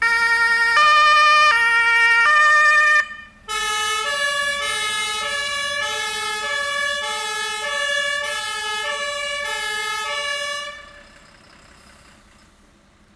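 German fire engine two-tone siren (Martinshorn) sounding its alternating high-low call. It runs for about three seconds, breaks off briefly, then sounds again for about seven seconds with quicker changes between the two tones before stopping.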